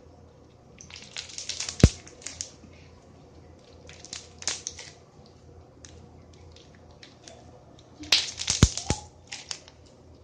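Crunchy slime being squeezed and worked by hand, crackling in three short bursts, with a sharp pop in the first and the last burst.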